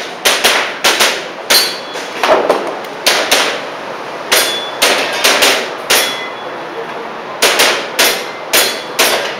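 Airsoft pistol shots in quick, irregular strings, about fifteen sharp cracks. Some are followed by a short metallic ring from BBs striking steel targets, and there is a pause of about a second and a half midway.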